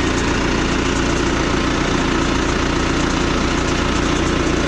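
John Deere 310C backhoe's diesel engine idling steadily.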